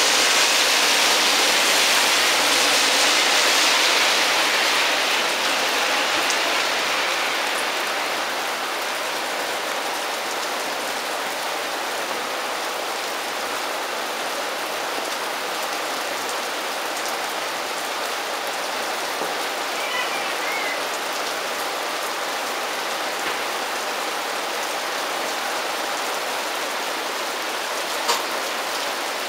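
Heavy thunderstorm rain falling and splashing as a steady hiss, loudest for the first few seconds, then easing a little to an even downpour. A single sharp click near the end.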